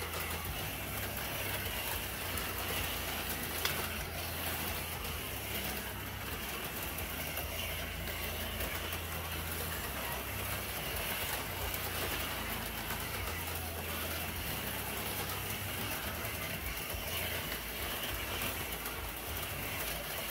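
HO slot cars running on a plastic track, their small electric motors whirring steadily with slight rises and falls as the racers work the throttles.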